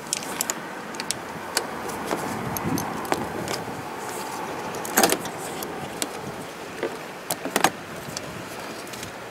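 Scattered metal clicks and clinks of a ratchet, socket and hand tools knocking against the engine while valve cover bolts are worked loose. The louder clatters come about five seconds in and twice in quick succession a little later.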